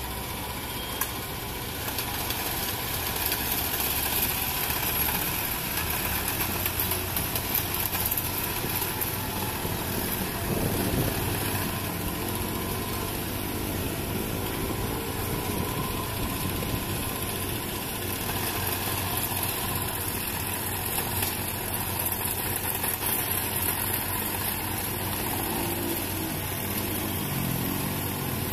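Diesel engines of construction machinery running steadily, with an engine revving up and down about ten seconds in and again near the end.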